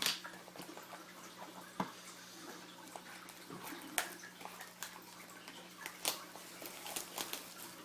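Cardboard card boxes and packaging being handled and opened: scattered taps, clicks and short rustles, the sharpest about two seconds and four seconds in, over a faint steady hum.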